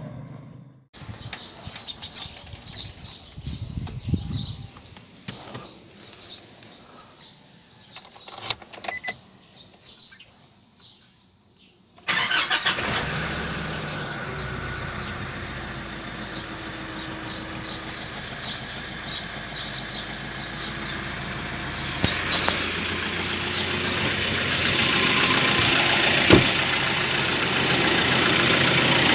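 Quiet for the first stretch, with only scattered faint sounds. About twelve seconds in, a 2019 Nissan Navara NP300's four-cylinder turbodiesel engine comes in abruptly and idles steadily with a fine ticking clatter, growing louder from about twenty-two seconds in.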